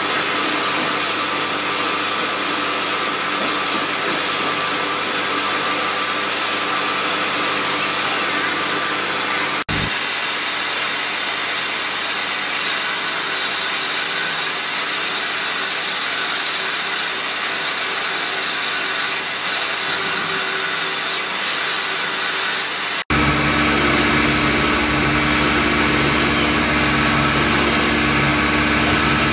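High-speed rotary carving handpieces grinding nephrite jade with small burrs: a steady motor whine with a grinding hiss. The sound changes abruptly twice, about a third of the way in and again about three-quarters of the way in, and the last part carries a deeper motor hum.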